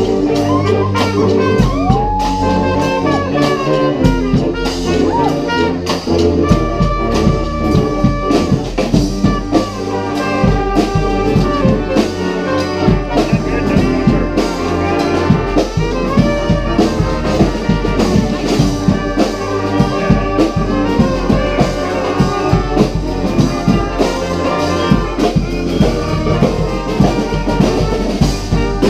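Marching brass band playing a lively tune: trumpets, trombones and saxophones over a steady drum beat, with one horn sliding up into a held note about two seconds in.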